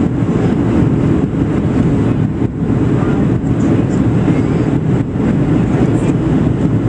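Steady rumble of engine and airflow noise heard inside the passenger cabin of a Boeing 737-700 in flight on its descent, deep and unbroken.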